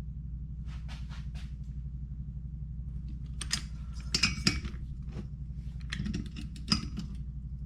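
Scattered light metallic clinks and taps of hand tools against the engine as its nuts are torqued, coming in small groups over a steady low hum.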